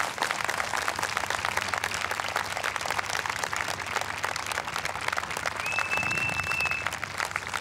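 Audience clapping steadily over the low idle of a pit bike's small engine. A single high whistle lasting about a second comes in near the end.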